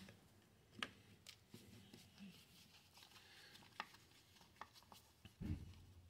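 Near-quiet with faint, scattered clicks of a screwdriver turning the T20 Torx bolts out of a Stihl backpack blower's plastic throttle handle.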